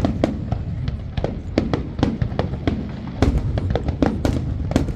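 Fireworks display: a rapid, irregular run of sharp bangs and cracks, about three or four a second, over a steady low rumble. The loudest reports come late, after about three seconds.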